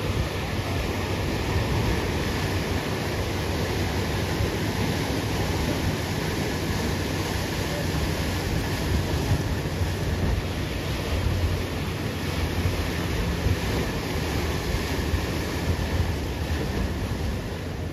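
Ocean surf washing and breaking in a steady wash of noise, with wind rumbling on the microphone.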